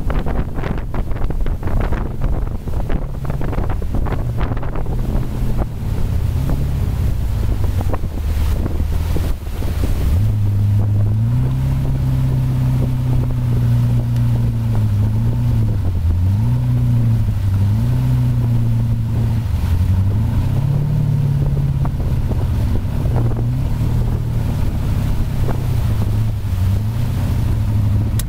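Mastercraft ProStar 190 ski boat's inboard engine running under way, with wind buffeting the microphone and water rushing in the wake. About a third of the way in, the wind noise eases and a steady engine note comes through clearly, its pitch rising and falling several times.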